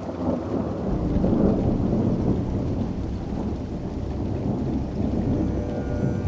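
Rolling thunder rumbling low over steady rain, building up in the first second and staying strong.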